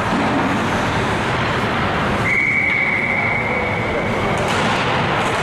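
A referee's whistle sounds in one long, steady blast of about two seconds, starting about two seconds in. Behind it runs the constant background chatter and noise of an ice rink crowd.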